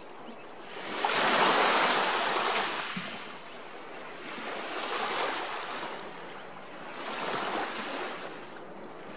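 Small waves washing onto a sandy lakeshore beach, three of them: the largest comes in about a second in, with smaller ones around the middle and near the end.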